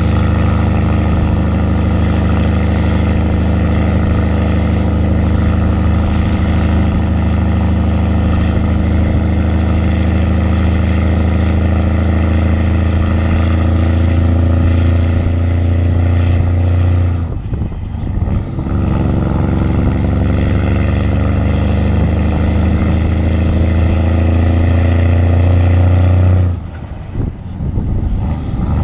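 Straight-piped Mack truck engine pulling hard under a heavy lowbed load, its loud exhaust note slowly climbing in pitch. The sound drops out briefly for a gear shift about two-thirds of the way in and again near the end, then picks up and climbs again.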